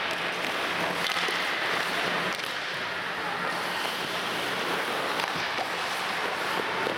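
Steady rink noise of an ice hockey game in play: the hiss and scrape of skates on the ice, with a few faint knocks of sticks or the puck.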